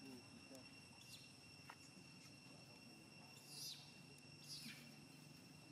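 Near silence: faint steady insect trilling in the background, with two brief high chirps a second apart near the middle.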